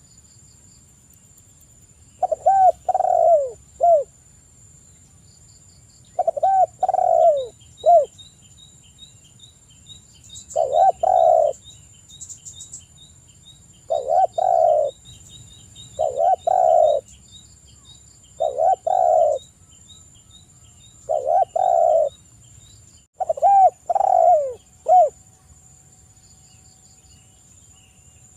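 Spotted dove (tekukur) cooing: its song repeated as short phrases, mostly of three notes, every two to four seconds. This is the persistent 'gacor' calling used to provoke other doves into answering.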